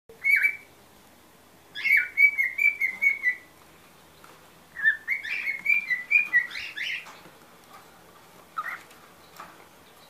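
Male cockatiel singing in whistled phrases: a short note, then two runs of quick warbled notes about two and five seconds in, and one more short note near the end.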